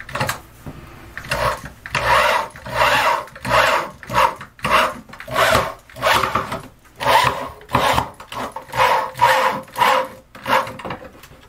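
Power drill working into a wooden board overhead, its grinding surging and easing in a steady rhythm of about three pulses every two seconds.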